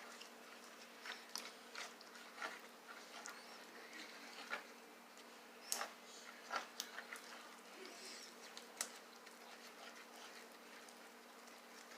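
Homemade slime being worked: faint, irregular sticky clicks and soft squelches.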